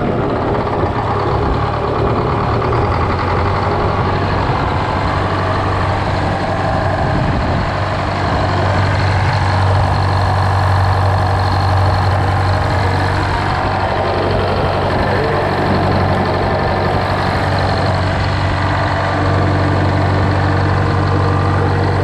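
GM 4-71 supercharged two-stroke diesel ("Screaming Jimmy") running with no load just after starting on a freshly filled secondary fuel filter. It settles into a steady idle a couple of seconds in.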